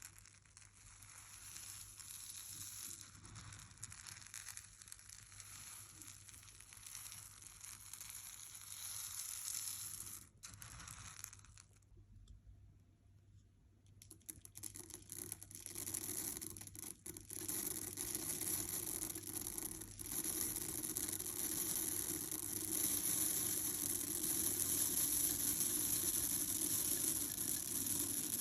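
Soy wax flakes rustling and crunching as they are handled and poured, a crisp granular noise. It drops away briefly before the middle, then comes back louder and denser in the second half.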